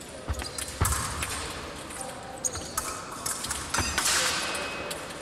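Épée fencers' feet thudding on the piste during a bout, with the occasional click of blades meeting. The thuds come at irregular moments, the heaviest about a second in and near four seconds in.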